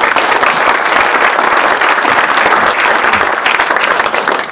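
An audience applauding steadily, dying away near the end.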